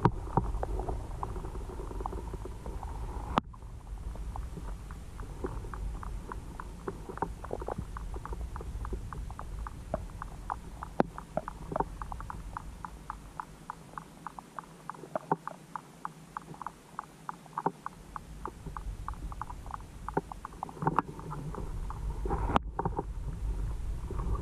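Underwater pond sound heard through a GoPro Hero5's waterproof housing: a low rumble with many short, sharp clicks, several a second, that thin out for a few seconds around the middle.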